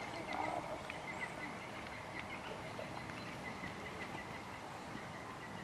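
Quiet outdoor background noise by the water, with a few faint light clicks and a faint, thin, high chirping.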